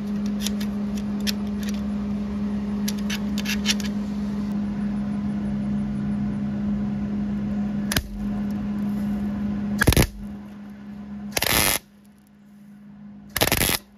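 MIG welder laying short tack welds: three loud crackling bursts of under half a second each, in the second half, over a steady electrical hum, with light clicks earlier on.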